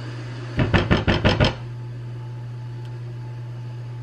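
A quick run of about six sharp knocks in under a second, a utensil knocking against a cast iron skillet, over a steady low appliance hum.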